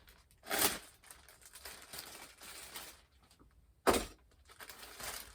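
Packaging being handled: a short swish about half a second in, light rustling, and one sharp knock about four seconds in.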